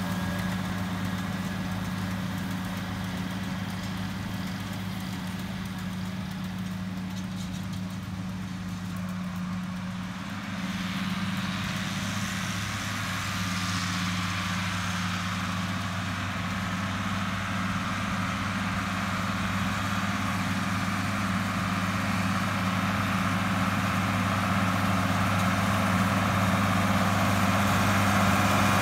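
International Harvester diesel tractor running steadily at working speed, driving a Vermeer round baler as it picks up hay windrows. The engine drone eases off slightly as the rig moves away, then grows steadily louder as it comes back toward the listener.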